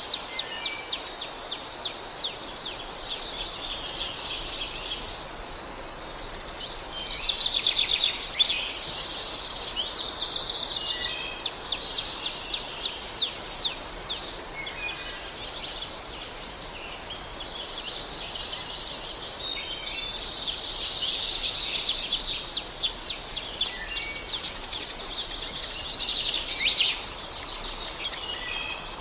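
Many small birds chirping and twittering together in a dense, continuous chorus of quick high calls that swells and fades in patches.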